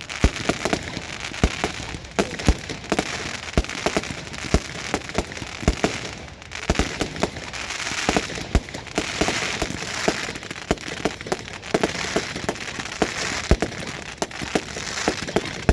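Fireworks display: a rapid, irregular run of sharp bangs and pops, several a second, over a continuous crackling hiss.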